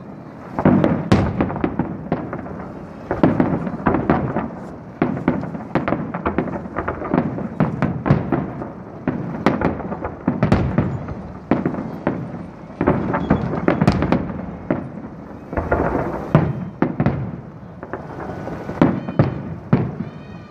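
Aerial fireworks shells bursting in a dense volley: sharp bangs in quick succession, several a second.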